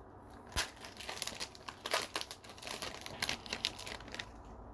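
Foil wrapper of a Panini Prizm trading card pack crinkling and tearing as the pack is opened: a run of irregular crackles and sharp rips.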